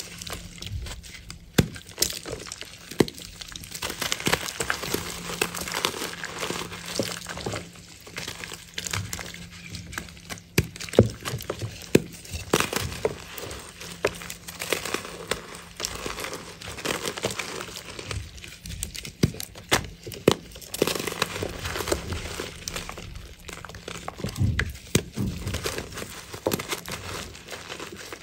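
Hands squeezing and breaking apart blocks of reformed chalk, the crumbly chunks giving a dense, irregular run of crunches and crackles as they fall to powder.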